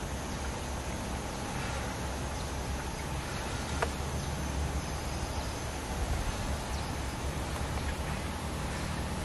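Strong wind rumbling on the microphone over a forest background, with a faint steady high insect buzz and a single sharp tick about four seconds in.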